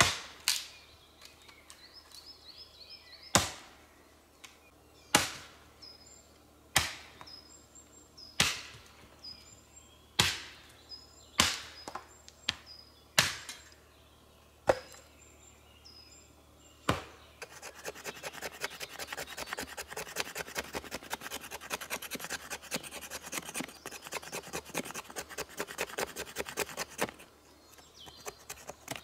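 An axe splits dry wood into kindling on a chopping stump: about eleven sharp chops, a second or two apart. Then, from about two-thirds of the way in, a long run of fast, dense scraping, with faint bird chirps early on.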